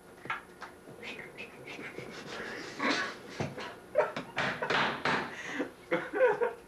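Stifled laughter: breathy, panting bursts from a young man trying not to crack up, loudest about three to five seconds in.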